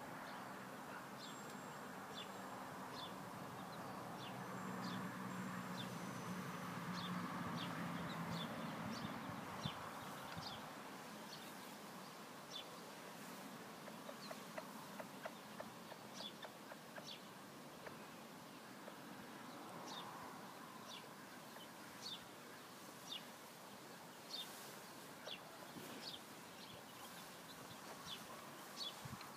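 Young chicks peeping, short high falling calls coming a few every second, from chicks sheltering under a frizzle hen. A steady low hum runs under them for the first ten seconds.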